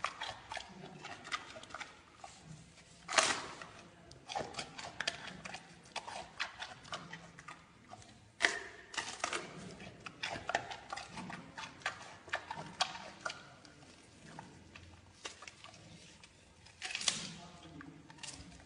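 Giant panda chewing bamboo shoots: a steady run of crisp crunches and clicks, with a few louder cracks as it bites and snaps the shoots.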